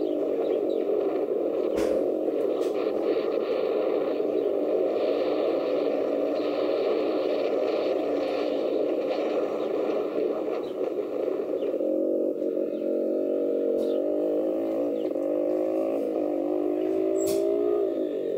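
80cc dirt bike engine running under throttle, heard from the rider's helmet camera. Over the last several seconds its pitch climbs steadily as it revs out, then drops near the end.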